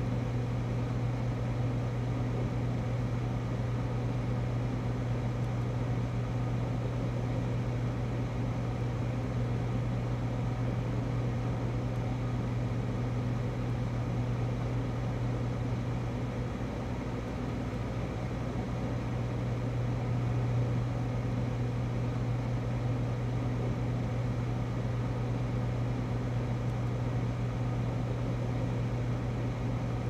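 Freezer running with a steady low hum that stays even throughout.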